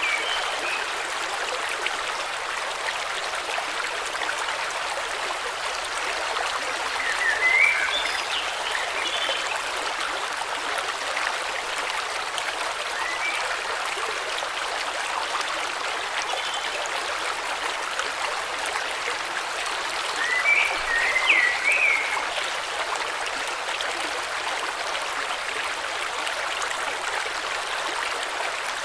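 River water flowing steadily, with short bird chirps about seven seconds in and again around twenty seconds in.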